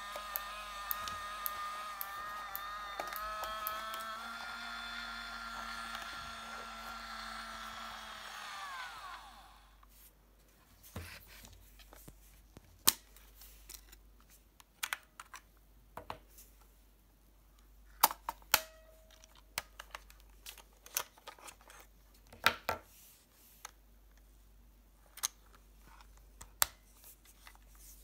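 Olympus Trip AF 50 compact 35mm camera's motor whirring steadily as it rewinds the film. The motor rises in pitch about four seconds in, then winds down and stops a few seconds later as the film is drawn fully into the cartridge. Scattered sharp clicks and taps of plastic follow as the camera's back door is opened and the camera handled.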